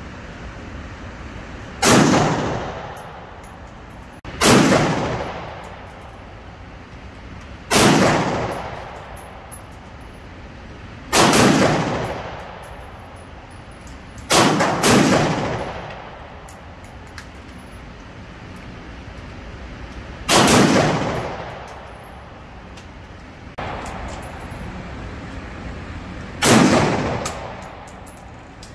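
AR-15 rifle fired in single shots, about eight in all, spaced a few seconds apart, with two in quick succession near the middle. Each shot rings out and fades in the echo of an indoor range.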